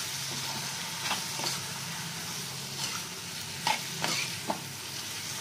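Steel spoon stirring spiced kakdi (cucumber) sabzi in a metal pan, over a steady sizzle of frying, with a few knocks and scrapes of the spoon against the pan.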